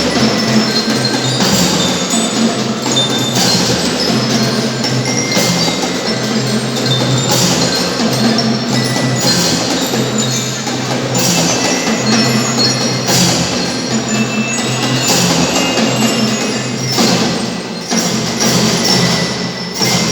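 Children's drum band playing: bell lyres (glockenspiel) ring out the melody over a steady beat of drums, with cymbal hits recurring every second or two.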